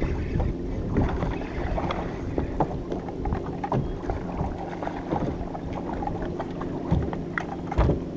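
Small waves slapping against the hull of a bass boat, with wind on the water and a run of short knocks and clunks from gear and feet on the deck; a heavier thump comes near the end.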